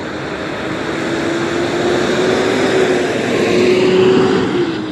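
Freeway traffic noise: a vehicle passes close by, its tyre and engine rush with a steady hum building to a peak about four seconds in, then falling away.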